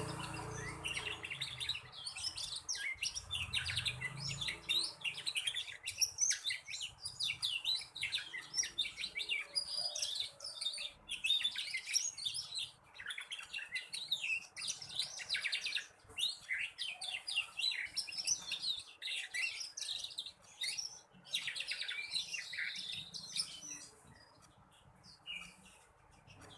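Young black-red colour domestic canary twittering in long, fast runs of short chirps: a juvenile practising its song. It falls quiet near the end.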